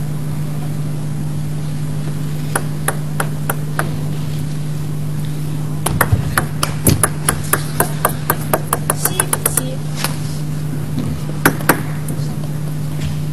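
Table tennis ball clicking sharply on the table and bats: a few evenly spaced clicks, then a long run of clicks that come faster and faster, then two more near the end. A steady low hum runs underneath.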